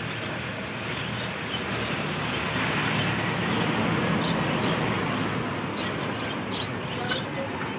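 Street traffic noise, a vehicle going past so that the rumble swells over the middle, with a few faint ticks.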